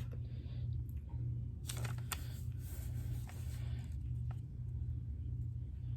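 Steady low hum of room noise, with a few faint taps and brushing sounds of the iPad being handled and its screen touched during setup.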